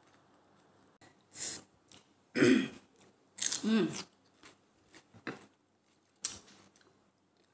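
A woman's series of short vocal sounds and breaths while eating rice with chilli by hand, with some chewing; the loudest come about two and a half and three and a half seconds in.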